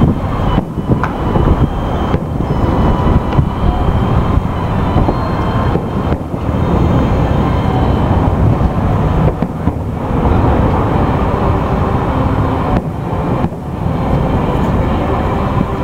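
Distant aerial fireworks display: a dense, continuous low rumble of shell bursts rolling into one another, with no sharp, separate bangs.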